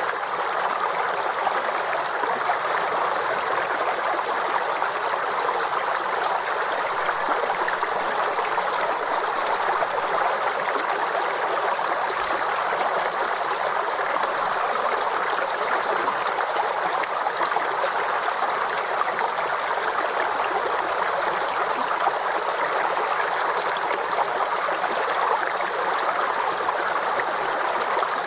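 Forest stream flowing and gurgling steadily, an even rush of water.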